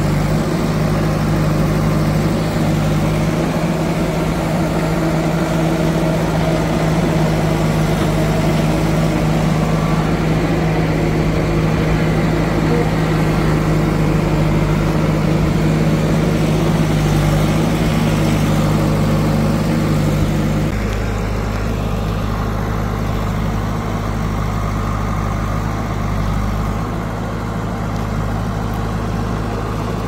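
Diesel engine of a heavy farm or construction machine running steadily. About two-thirds of the way through, its note drops and it gets a little quieter.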